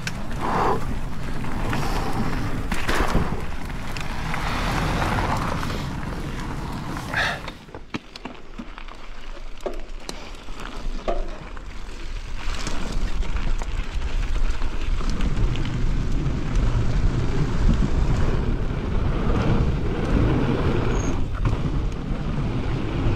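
Propain Spindrift mountain bike running down a rooty dirt trail: tyres rolling and skidding over dirt and roots, with knocks and rattles from the bike over bumps and wind rushing over the camera microphone. It eases off briefly about eight seconds in, then a heavier rumble builds over the last third.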